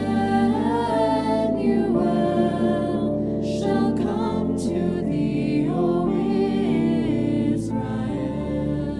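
A slow hymn, with voices holding long notes with vibrato over a sustained, organ-like accompaniment.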